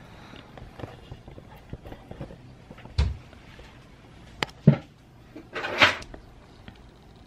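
A few sharp knocks and thumps: one about three seconds in, two more about a second and a half later, then a short rushing burst near the end, with light handling clicks between.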